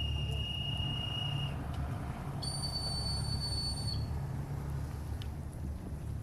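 A whistle blown in two long, steady notes: the first held for about two seconds, then after a short gap a higher note for about a second and a half. Wind rumbles on the microphone throughout.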